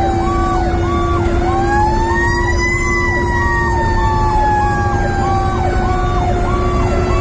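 Siren wailing: a slow tone that falls, rises to a peak about three seconds in, then slowly falls again. It is layered with a quicker repeating siren pattern about twice a second and a steady hum, over low road noise.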